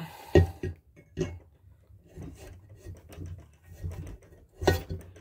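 Crankshaft of a 1953 NSU Konsul 500 cc engine being fitted into its main bearing in the crankcase half: a few sharp metallic knocks, the loudest about half a second in and another near the end, with rubbing and handling noises between. It slides in quite easily, which the mechanic finds looser than he would like.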